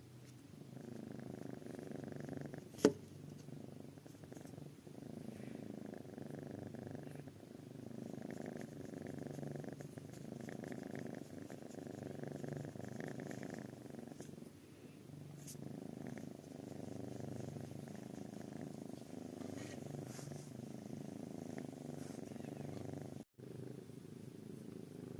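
A kitten purring close up: a steady low rumble that swells and eases every two to three seconds. A sharp click about three seconds in, and the sound cuts out for a moment near the end.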